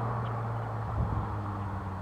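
Chrysler Crossfire SRT6's supercharged 3.2-litre V6 running steadily, with a brief knock about a second in, after which its engine note settles a little lower and quieter as the revs ease down.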